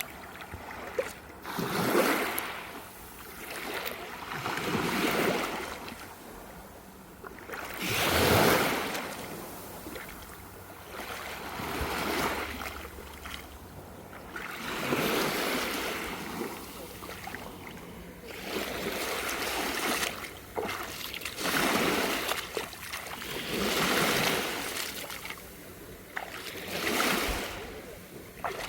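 Small waves on a calm sea washing in and drawing back, a swell of water noise about every three seconds.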